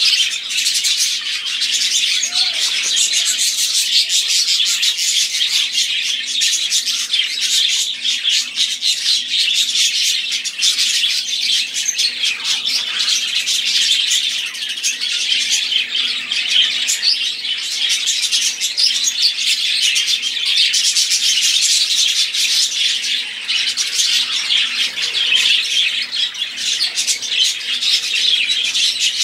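Many budgerigars warbling and chattering together, a dense, unbroken stream of fast high chirps.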